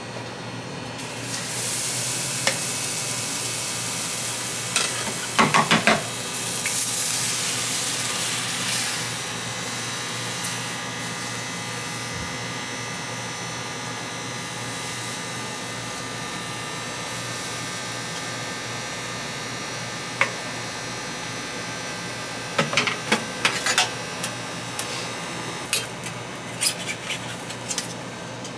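Crepe batter sizzling on a hot crepe griddle as it is spread thin with a wooden spreader; the sizzle swells about two seconds in and then settles to a steady hiss. A few sharp clinks of utensils come around six seconds in, and a run of taps and scrapes near the end as a spatula works under the crepe.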